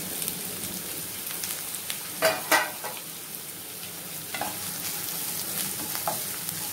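Chopped vegetables sizzling in hot oil in a non-stick wok, a steady hiss. Two sharp knocks come about two seconds in, and the vegetables are stirred around the pan near the end.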